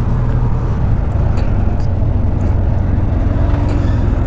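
Motorcycle engine running at a steady pace while riding, a continuous low hum with road and wind noise.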